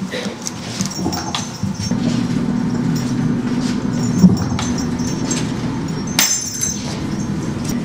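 Scattered metallic clinks and jingles, most likely the metal rings of a Buddhist monk's ringed staff (khakkhara) shaken or set down during the rite. The loudest jingle comes about six seconds in, over a low steady drone.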